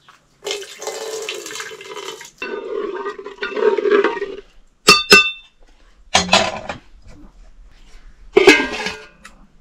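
Water sloshing and pouring in an aluminium pot of rice as it is stirred with a metal ladle. Then two sharp, ringing clinks of the ladle against the pot, followed by two metal clanks as a lid is set on the pot.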